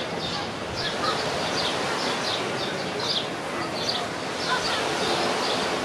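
Birds chirping over and over in short, high notes, a few a second, over a steady background hiss.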